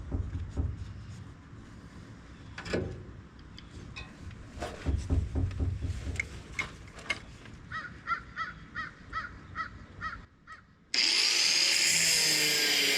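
Tools knocking and scraping on the rear shock mount of a 1978 Ford F250. About two seconds before the end a power tool starts suddenly and runs loud and steady, its pitch dipping and recovering under load, to get off a rusted-on shock absorber whose nut will not turn.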